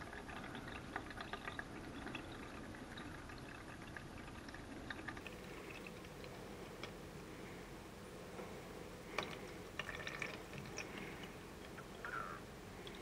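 Faint, scattered drips of water falling from the bottom of a 3D-printed Pythagoras (greedy) cup into a bucket with water in it.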